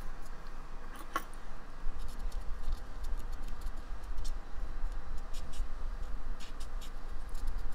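Cotton swab scrubbing flux off the solder joints of a circuit board, making faint irregular ticks and scratches over a low steady hum.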